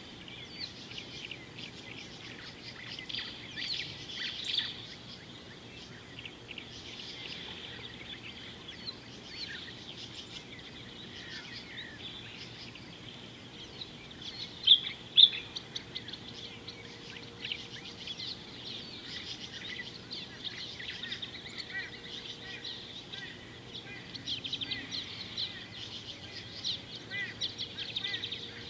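Many wild birds chirping and calling at once, short high calls overlapping throughout, with two loud sharp chirps about halfway through.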